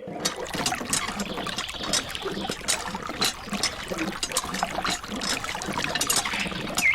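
Water trickling and splashing, a steady run of small drips and plinks.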